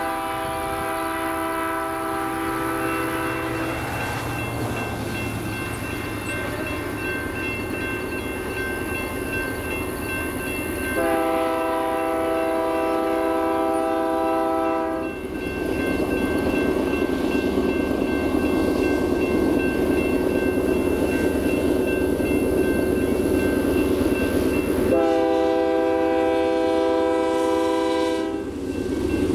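Multi-chime air horn of an approaching Union Pacific diesel freight locomotive sounding three long blasts about ten seconds apart, a fourth starting right at the end. Between the blasts the rumble of the locomotive and its wheels on the rail grows louder as the train nears.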